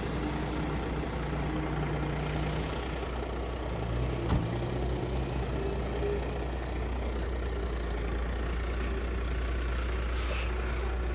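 Diesel engine of a cotton module truck running steadily as the truck takes a cotton module onto its tilted chain bed. There is a single short knock about four seconds in.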